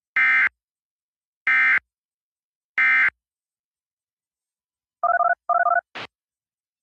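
Three Emergency Alert System End-of-Message data bursts (the SAME "NNNN" code), each a short buzzy digital squawk, evenly spaced about a second apart, marking the end of the tornado warning broadcast. About five seconds in come two short blips warbling between two pitches, then a quick rising chirp.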